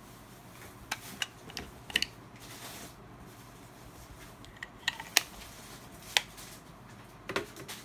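Pioneer DVD remote control being handled, its plastic battery cover slid off and clipped back on: a series of sharp plastic clicks and snaps, with light handling rustle between them.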